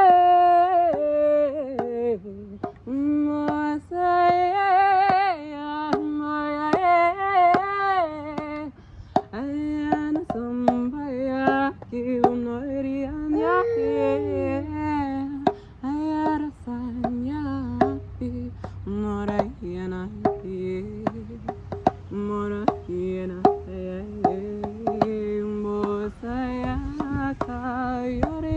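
A woman's solo voice chanting melodic, wordless light-language syllables, with wavering vibrato on held notes and sharp clicks between them.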